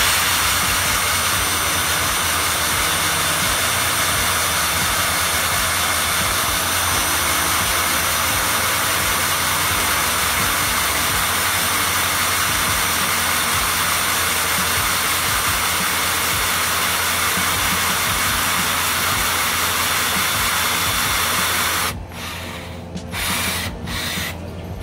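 A power drill spins a Wheeler AR-15 receiver lapping tool against the upper receiver's front face with lapping compound, cutting the face true: a steady motor whine with grinding that stops abruptly about 22 seconds in. A few short handling noises follow.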